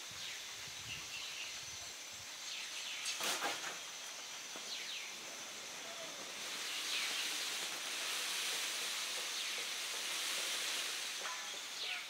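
Outdoor ambience: a steady high hiss with a few faint, short bird chirps. A brief rustling burst about three seconds in is the loudest moment. The hiss grows louder about halfway through.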